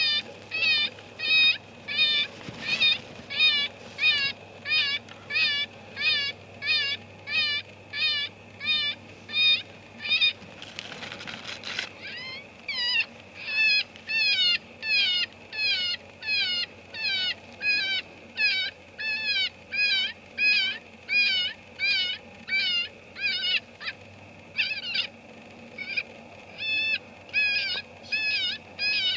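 FoxPro electronic predator caller playing a looped prey-distress sound: short, high squealing cries repeated evenly a little under twice a second. A brief rush of noise, like a wind gust or handling, breaks in about a third of the way through.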